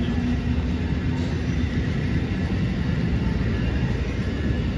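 Amtrak passenger train's stainless-steel coaches rolling past, a steady, loud rumble of wheels on the rails.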